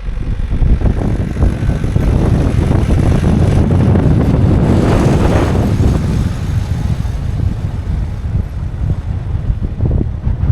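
Car driving on a mountain road: steady engine and road rumble with wind on the microphone, swelling to its loudest about halfway through.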